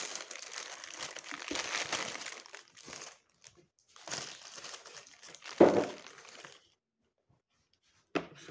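Paper burger wrapper crinkling in bursts as it is unwrapped and handled, with a louder thump about five and a half seconds in. A short sharp sound comes near the end.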